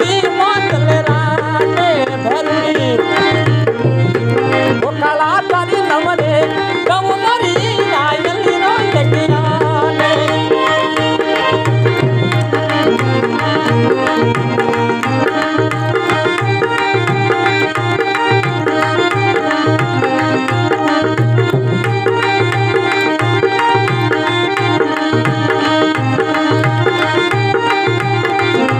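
Marwari devotional folk music: a hand drum keeps a fast, steady beat under a melody line that bends and ornaments for the first several seconds, then settles into steadier held notes.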